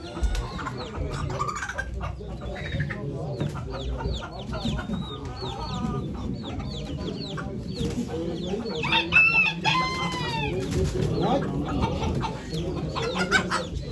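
Domestic chickens clucking and calling repeatedly in short notes. About nine seconds in, a rooster crows once, the loudest sound here.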